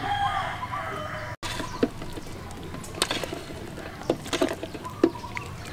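A rooster's crow trails off in the first second. After that, a metal ladle knocks and scrapes against a steel soup pot several times while stirring.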